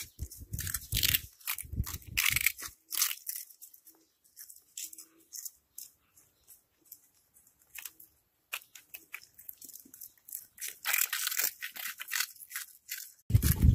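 Cats crunching crunchy puffed snack balls, a quick run of sharp crackling bites, then a few seconds of only faint scattered crunches, then another busy run. A loud low bump comes right at the end.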